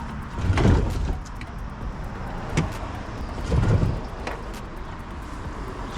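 Handling noise from working on car trim by hand: two dull thumps about half a second and three and a half seconds in, and a few sharp clicks of plastic trim and clips.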